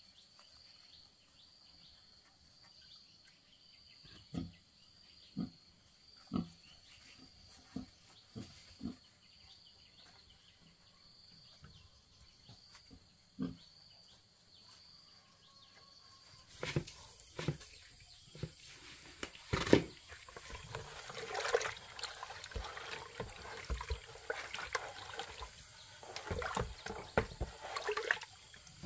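A pig grunting softly a handful of times over a steady insect drone. About halfway through, a wooden board stirring wet feed mash in a plastic bucket takes over, sloshing, with a few sharp knocks against the bucket.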